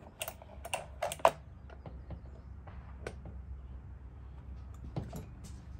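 Scattered light clicks and taps of metal and plastic parts and hand tools being handled on a Husqvarna chainsaw, several close together in the first second or so, then single taps about three and five seconds in, over a faint low hum.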